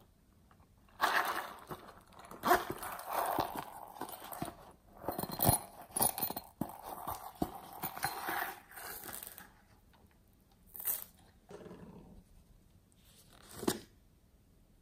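Hands handling and opening a soft plastic squishy toy: close crinkling and rustling with many small clicks for about eight seconds, then a couple of separate short taps near the end.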